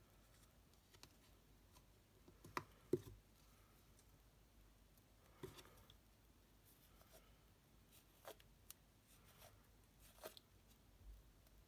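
Near silence broken by a handful of faint clicks and paper rustles, the sharpest two close together about three seconds in: a thin cardstock strip being curled and its ends turned over with a bone folder.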